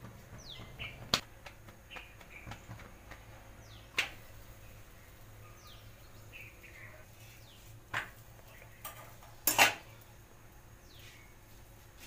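Kitchen utensils knocking and clacking while a roti is rolled out and cooked on an iron tawa over a gas burner: a few separate sharp knocks, the loudest a quick double clack a little before the end. A bird's short falling chirps sound faintly now and then between them.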